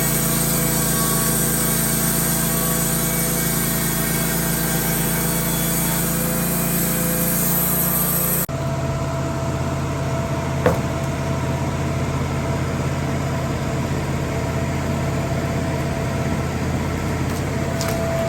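Wood-Mizer LT15 band sawmill running, its blade cutting through a log with a steady hiss over the engine. About eight seconds in, the cutting sound stops suddenly and the engine runs on steadily, with a single knock a couple of seconds later.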